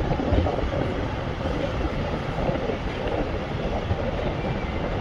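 Steady road and wind noise of a moving car, with wind buffeting the microphone at an open side window.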